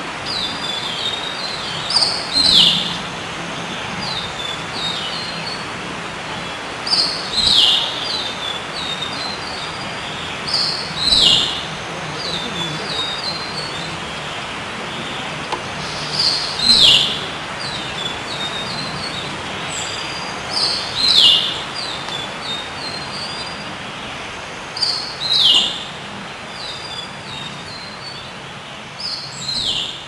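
A songbird singing: seven short, high phrases about every four seconds, each a few chirps ending in a louder downward-slurred note, with softer chirps between, over a steady hiss.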